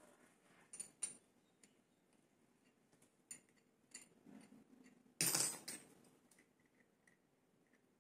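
Small metal parts of a spray gun clinking and tapping as they are handled, a few scattered clicks, with one louder burst of about half a second roughly five seconds in.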